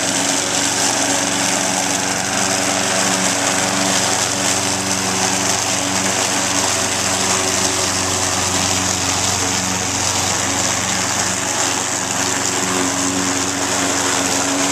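Self-propelled Toro walk-behind lawn mower running steadily under its own power, its engine note unchanging as it cuts through grass and fallen leaves.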